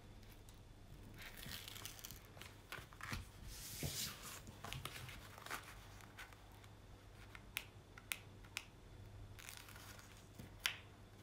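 Paper and plastic packaging of a rolled diamond-painting canvas crinkling and tearing as it is unwrapped, with a few sharp ticks in the second half.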